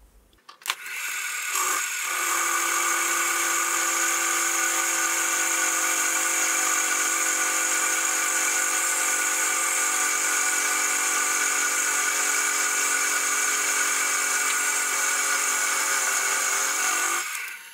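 Benchtop milling machine starting with a click about a second in and spinning up, then running steadily as its end mill cuts the end of a 1/2 x 3 inch steel plate, a steady whine with a high hiss. It stops near the end.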